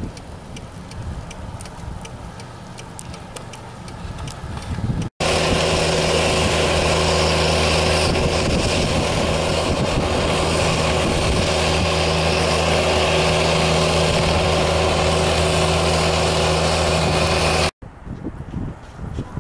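Small utility vehicle engine (a John Deere Gator) running steadily close by at an even, unchanging pitch. It comes in abruptly about five seconds in and cuts off abruptly about twelve seconds later. Before it there is faint outdoor noise with scattered light ticks.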